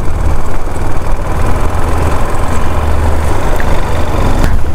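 KTM 390 Adventure's single-cylinder engine running as the motorcycle is ridden, a steady low rumble under an even rush of road and wind noise, dipping briefly near the end.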